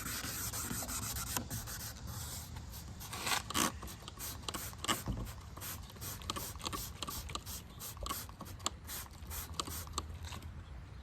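Headlight restoration kit's abrasive pad wet-sanding an oxidized plastic headlight lens by hand: scratchy back-and-forth rubbing strokes, about three a second, as the oxidation comes off.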